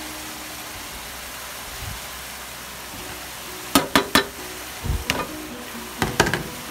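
Metal spatula scraping and knocking against a plastic container as scrambled egg is pushed out into a wok, with three quick knocks about two-thirds of the way in and more just after. Beneath them, the steady hiss of zucchini simmering in its liquid in the wok.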